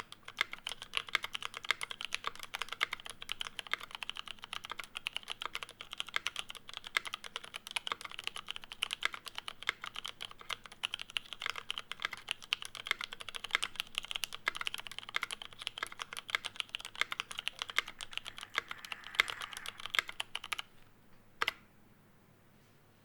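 Fast, continuous typing on a custom Bauer mechanical keyboard with a brass kit, aluminium plate, lubed and filmed Cherry MX Brown tactile switches and GMK keycaps, with no sound dampening. The keystrokes stop about twenty seconds in, and one more key is pressed a second later.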